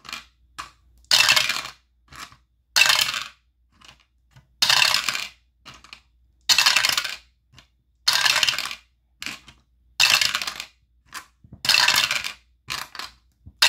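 Two eight-sided dice rolled over and over in a dice roller. A rattling clatter comes about every two seconds, seven or eight times, with a few lighter clicks in between.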